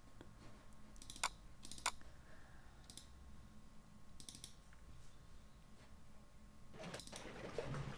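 Faint computer mouse clicks: a few single clicks, then a double-click about four seconds in. Near the end a denser, louder noise starts as the opened video file begins to play.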